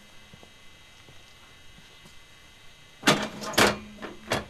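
Metal clanks from a tent trailer's drop-leg corner stabilizer jack being lowered and set. After about three seconds of faint background, two sharp clanks come about half a second apart, then a third just before the end.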